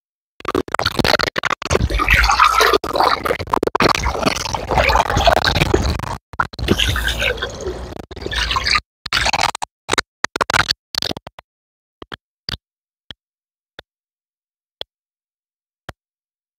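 Water splashing and sloshing in a tub, with wet squelching, as chopped raw mutton is washed by hand; it stops about nine seconds in, leaving a few faint clicks.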